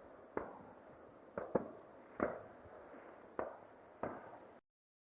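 Distant firework display: six bangs at uneven intervals, two of them in quick succession, each trailing off in a short echo. The sound cuts off abruptly near the end.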